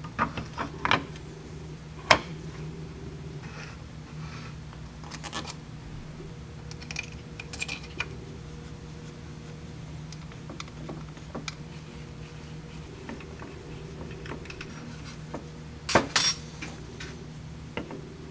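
Metal parts of a small motor and pneumatic slide assembly clinking and knocking on a metal plate as they are handled and fitted by hand: scattered clicks, a sharp knock about two seconds in and a cluster of louder knocks near the end. A steady low hum runs underneath.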